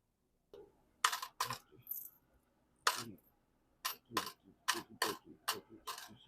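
An irregular run of about a dozen sharp clicks and clacks of small hard objects, starting about half a second in.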